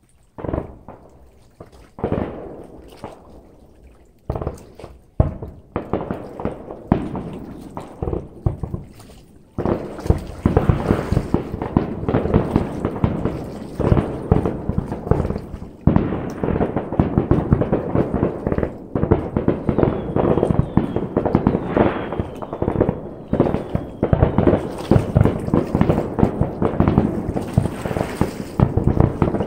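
Fireworks display: single booms every second or two at first, then from about ten seconds in a dense, rapid barrage of bangs and crackle.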